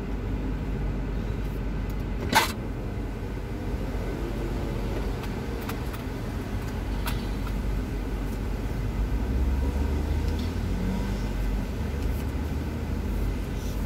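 Low, steady rumble of a car idling, heard from inside the cabin, with a single sharp click a couple of seconds in and a slightly deeper hum swelling about nine seconds in.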